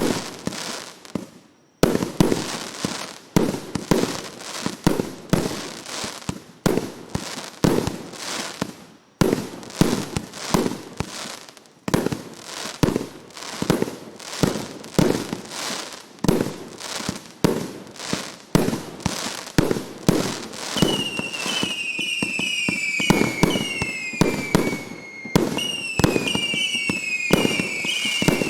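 A 1.2-inch, 300-shot firework cake firing a rapid string of shots and bursts, about two a second. About two-thirds of the way in, whistling shells join in, several overlapping whistles each falling in pitch.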